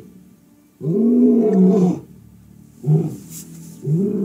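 A large wild animal roaring: one long call of a little over a second that rises and falls, then two shorter grunting calls near the end.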